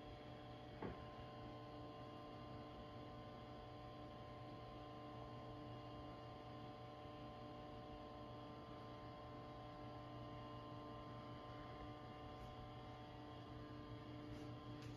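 Faint steady hum in a quiet room, with one light knock about a second in.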